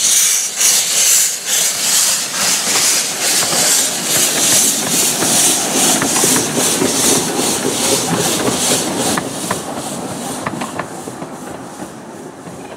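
Miniature steam locomotive River Esk pulling away, its exhaust beating in quick, even chuffs over a loud hiss of steam from open cylinder drain cocks, which fades as the engine passes. Its carriages then rumble by with a few sharp wheel clicks on the rail joints, dying away.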